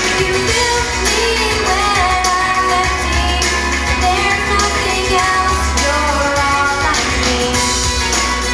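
Solo girl's singing voice over a recorded pop backing track with a steady bass.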